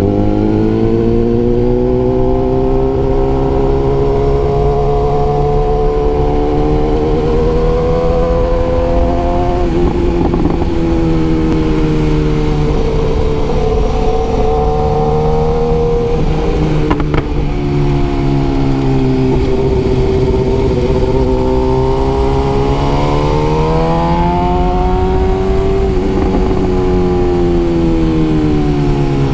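BMW S1000R's inline-four engine and exhaust running steadily while the bike is ridden at cruising revs, its note slowly rising and falling, with brief changes in pitch about ten and seventeen seconds in and a swell of revs near the end.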